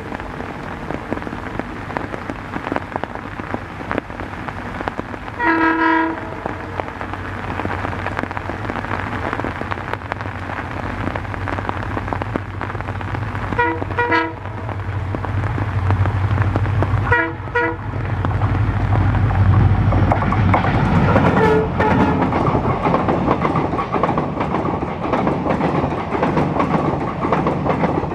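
Diesel locomotive horn sounding over a train running in the rain: one longer blast about six seconds in, then two short double toots around the middle. The engine drone and the rumble of the train grow louder in the second half.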